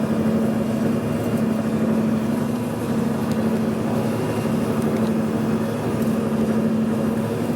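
Steady hum of a running machine tool, a G&L horizontal boring mill, holding one constant low tone with a fainter higher tone above it.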